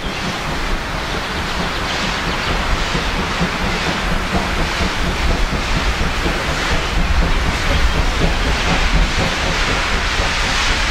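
Steam locomotive 50 3648, a two-cylinder 2-10-0 freight engine, working hard up a grade as it approaches. Its exhaust beats and steam hiss grow louder toward the end.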